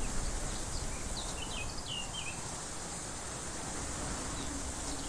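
Outdoor ambience: a steady hiss of background noise with a few short bird chirps between about one and two and a half seconds in.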